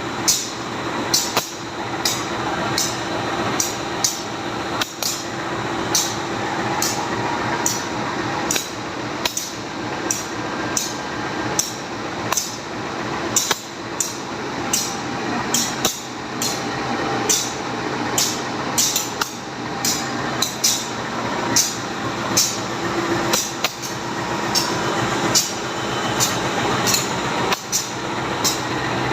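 Diesel locomotive running with a steady hum and a held tone, overlaid by short sharp hissing clicks at an irregular one or two a second: the odd noise the locomotive is making.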